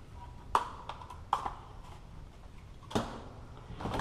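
Items being rummaged through in a clear plastic storage tote: a few sharp knocks and clatters of objects against each other and the plastic, with light rustling between them.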